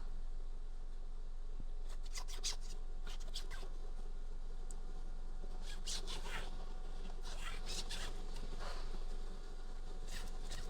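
Hands working on a steering wheel, making short bursts of light rubbing and scratching in several clusters, over a steady background hum.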